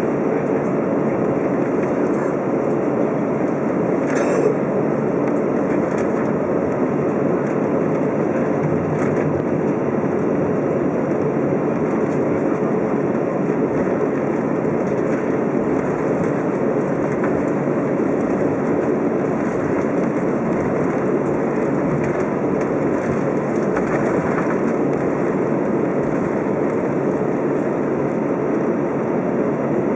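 Steady cabin noise of an Airbus A320 taxiing: idling engines and the rumble of the wheels rolling over the taxiway, heard from inside the cabin. A single brief click about four seconds in.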